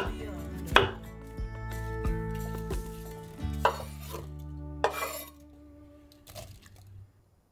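A kitchen knife cuts an apple on a wooden cutting board, then diced apple is scraped off the board with the blade and tumbles into a ceramic mixing bowl, giving a few sharp knocks and clatters. Soft background music plays under it and fades out near the end.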